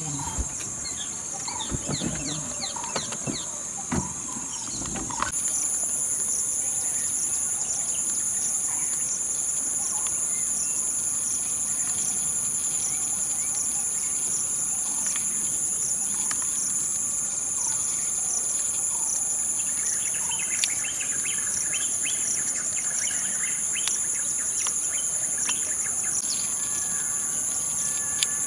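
Steady high-pitched insect drone, cicadas or crickets, that grows louder about five seconds in, with scattered bird chirps over it and a few light knocks in the first few seconds.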